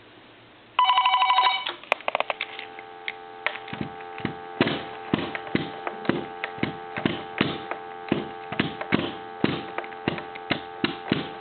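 Electronic ringer of a Radio Shack telephone warbling briefly about a second in, then steady dial tone from the handset, with irregular clicks and knocks from the phone being handled. The dial tone holds without dropping out: the bad solder joints on the main board and hook switch are repaired.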